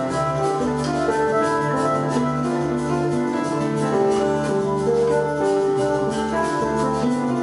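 Electronic keyboards playing an instrumental passage: sustained organ-like chords over a steady low note, with a melody of held notes changing every half second to a second.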